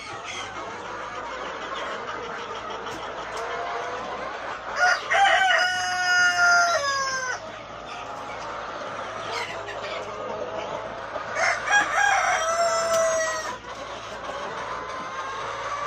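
A flock of Rhode Island Red and Black Australorp chickens clucking steadily, with a rooster crowing loudly twice, each crow about two seconds long, once about five seconds in and again near twelve seconds.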